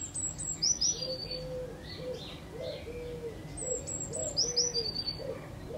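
Birdsong: a short, high phrase of falling notes, heard at the start and again about three and a half seconds in, over a steady run of short, low cooing notes about twice a second.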